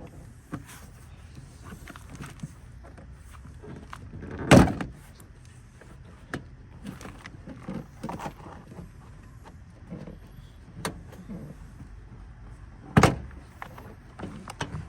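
Hands working on a car's interior door panel and its plastic clips: small clicks and handling noises, with two loud knocks, one about four and a half seconds in and one near the end.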